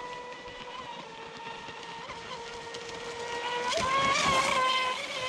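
Custom Pro Boat Sonicwake 36 RC speedboat running on the water: the steady high whine of its Leopard 4074 1800kv brushless motor and propeller. About four seconds in the boat passes close, and the whine swells, joined by the hiss and splash of the hull and spray, before easing off again.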